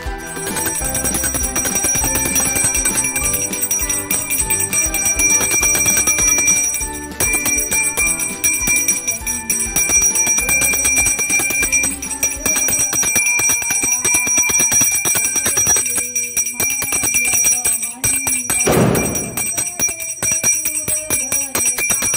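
A bell rung rapidly and without pause, its high ringing tones holding steady over music. A short swooping sound comes near the end.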